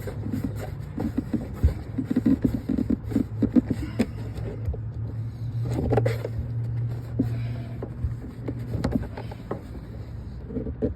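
Small irregular clicks and scrapes of a threaded hose coupling being screwed by hand onto a pressure washer's water inlet, over a steady low hum.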